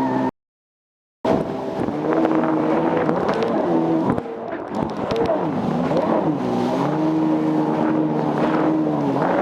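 Jet ski engine running hard, its pitch rising and falling again and again with the throttle, over a steady hiss. The sound cuts out completely for about a second near the start, then the engine is back.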